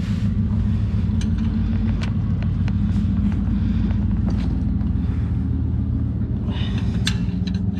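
Steady low engine drone, like a motor idling, with scattered light metallic clicks and taps from work on an oil filter.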